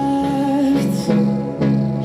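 Music: a song with a held, gliding sung melody over guitar accompaniment.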